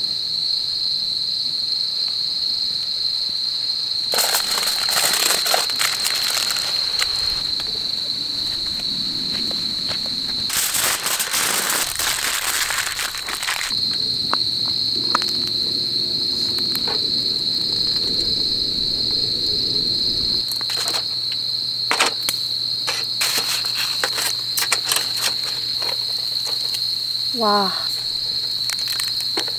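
Crickets chirring in a steady high drone, with two stretches of crinkling from paper towel and foil being handled about four and eleven seconds in, and light clicks of metal tongs against a wire grill in the last several seconds.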